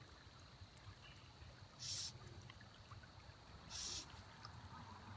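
Faint trickle of shallow creek water, with two short soft hisses about two seconds apart, the first about two seconds in.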